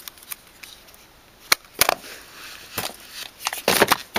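Makeup palettes being handled and shifted in a drawer: scattered sharp clicks and knocks, the sharpest about a second and a half in, and a cluster of louder rustling knocks near the end.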